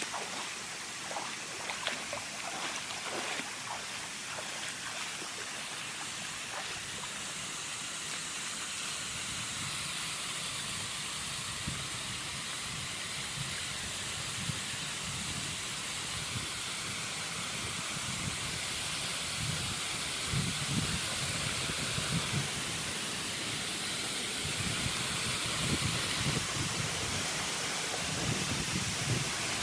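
Steady rushing of water from a waterfall and its stream, growing gradually louder.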